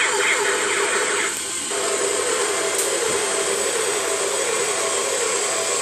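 Battery-powered toy helicopter's motor and gears running with a steady whir as its rotor spins, dipping briefly about a second and a half in.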